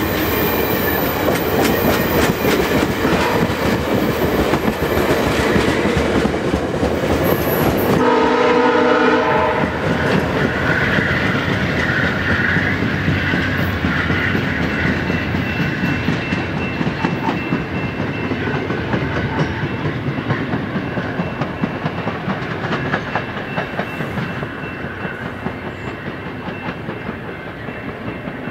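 Stainless-steel VIA Rail passenger coaches passing close at speed, wheels clicking over the rail joints, then fading steadily as the train pulls away. About eight seconds in, a train horn sounds a single chord for about a second and a half.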